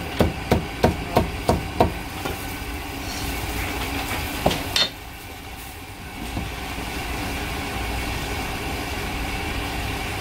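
Cleaver chopping through cooked goose onto a thick wooden chopping block: quick, even chops at about three a second for the first two seconds, then one more chop about four and a half seconds in. After that only a steady background hum remains.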